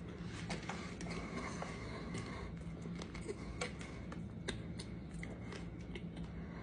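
Faint mouth sounds from a man chewing: soft, irregular clicks and smacks over a quiet room's low steady hum.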